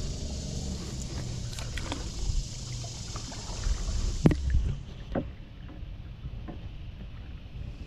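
Kayak paddling: the paddle working the water and knocking lightly against the boat, with a sharp knock about four seconds in. After that the sound drops to a quieter glide with a few faint ticks.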